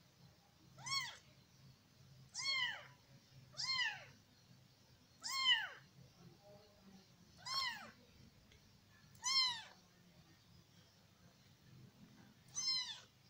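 A weeks-old kitten mewing: seven short high-pitched mews, each rising and then falling in pitch, repeated every one to two seconds.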